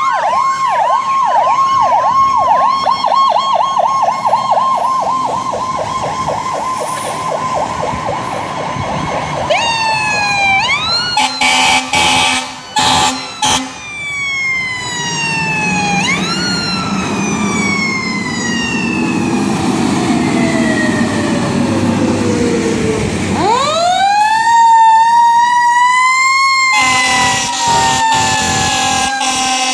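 Fire apparatus sirens and air horns. A fast electronic yelp siren gives way to a rising wail and several short air horn blasts. A siren then winds down slowly over several seconds and winds back up, and a longer air horn blast sounds near the end.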